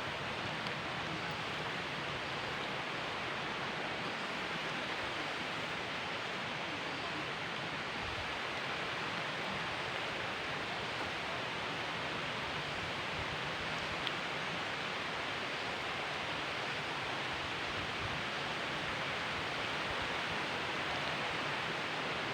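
Steady, unbroken rush of a nearby waterfall: an even hiss of falling water.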